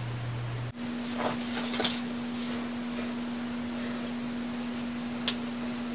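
Plastic clicks and rustling as peritoneal dialysis tubing and its red plastic clamp are handled, with one sharp click about five seconds in. A steady low hum lies under it and jumps up in pitch at a brief dropout less than a second in.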